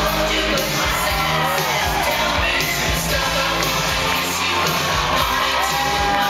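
Music with a sung vocal line and a steady bass underneath, playing loudly throughout.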